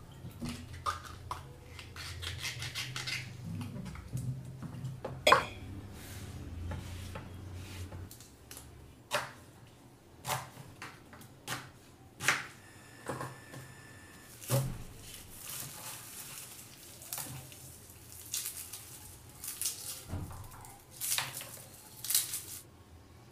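Food-prep sounds in a kitchen: scattered clinks and knocks of hands working meat in a stainless-steel bowl, a knife cutting onion on a wooden chopping board, and garlic being peeled. The sharpest knock comes about five seconds in, and a low hum stops about eight seconds in.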